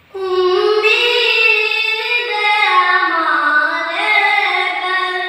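A naat sung by a single high, unaccompanied voice: one long, ornamented phrase that starts just after the beginning and is held, bending up and down in pitch.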